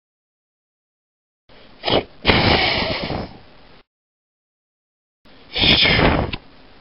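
Hissing, explosion-like noise bursts: a short one about two seconds in running straight into a longer one, then another about five and a half seconds in, with dead silence between them.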